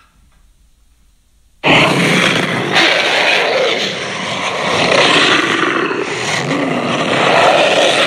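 A Tyrannosaurus rex roar sound effect, built up from layered big-cat and movie-monster roars. After about a second and a half of near quiet it starts suddenly and runs on as one long, loud roar that swells and eases.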